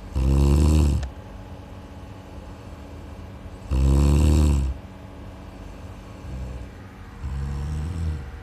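A sleeping person snoring: two loud snores about three and a half seconds apart, then softer ones near the end.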